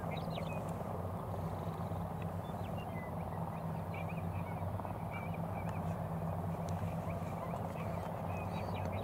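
Many short bird chirps scattered over a steady low hum.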